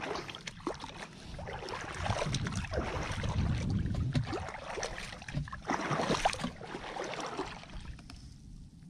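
Shallow water splashing and sloshing with scattered small clicks, busiest in the middle seconds and fading away near the end.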